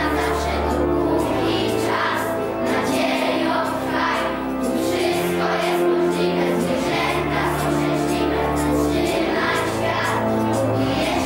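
Children's choir singing together over instrumental accompaniment with long held bass notes.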